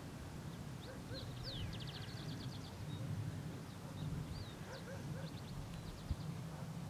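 Small songbirds singing: chirps and slurred whistles, with a rapid trill about a second and a half in and a shorter one around five and a half seconds in, over a steady low rumble.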